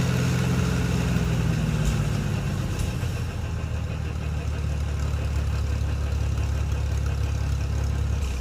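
Tractor engine running with its PTO driving a wood chipper, a steady engine note that drops and settles lower about three seconds in.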